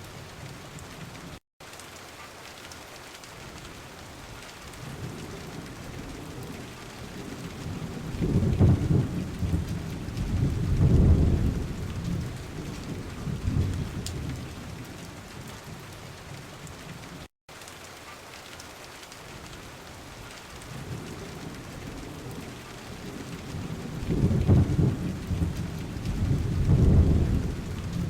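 Rain and thunderstorm ambience track: steady rain hiss with two long, rolling rumbles of thunder, one building about eight seconds in and another near the end. The track drops out for an instant twice.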